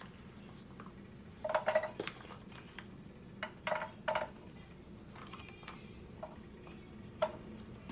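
A few light clicks and knocks of a plastic food container being handled and tapped as diced green peppers are shaken out of it into a skillet.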